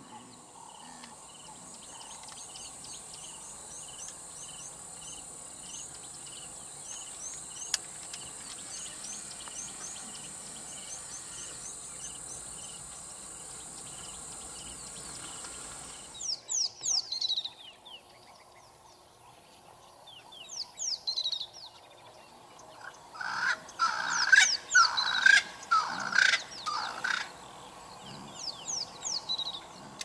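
Bush ambience: a steady high insect drone with a soft regular pip and small bird chirps, which stops abruptly about halfway through. After that, wild birds give falling whistled calls, with a loud burst of calls a few seconds later.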